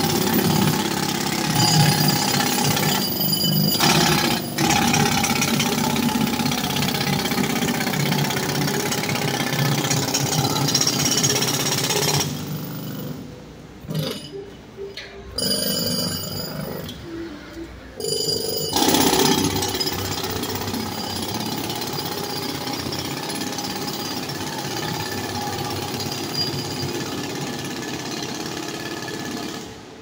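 Jackhammer hammering continuously, stopping for a few short pauses about halfway through before starting up again.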